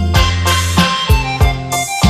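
Electronic keyboard music: held melody notes over a steady programmed drum beat with repeated low kick-drum hits.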